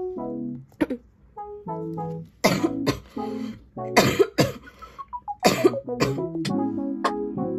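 Light instrumental background music with a person coughing over it, three loud coughs about a second and a half apart.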